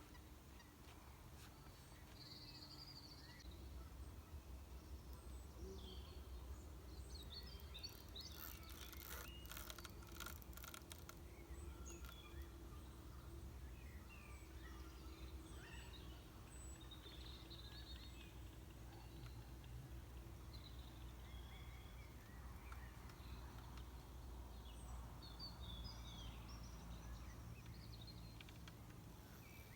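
Faint lakeside ambience: scattered short bird chirps over a steady low rumble, with a quick run of clicks about eight to eleven seconds in.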